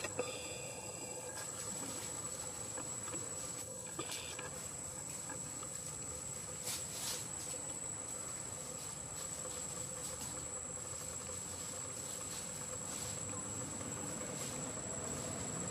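Steady high-pitched insect drone, cricket-like, over an even background hiss. A short chirping call comes in the first second and a brief rustle about seven seconds in.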